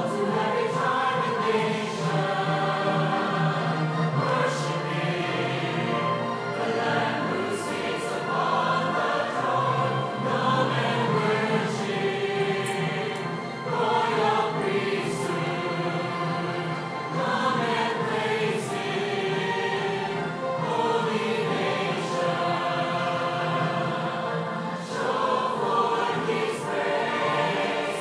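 Mixed choir of men's and women's voices singing a hymn together.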